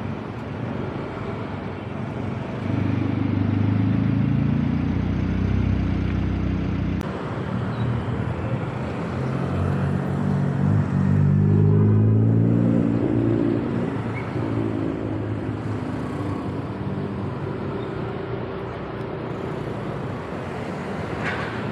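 Motor vehicle engine running, rising in pitch twice as it speeds up, over steady road noise.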